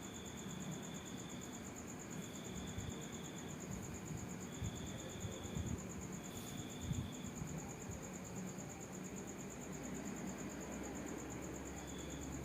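Insects, crickets among them, trilling: one high, rapidly pulsing trill runs steadily, while a lower chirping trill comes in phrases of about a second and a half with short gaps between. Soft low knocks and rustles come a few times around the middle.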